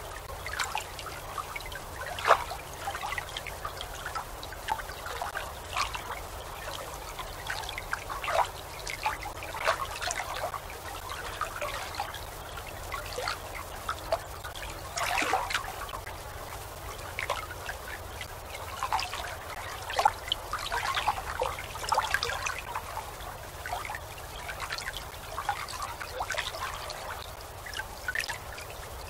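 Gentle water lapping and trickling in small irregular splashes, a soft-waves relaxation sound, over a faint low steady hum.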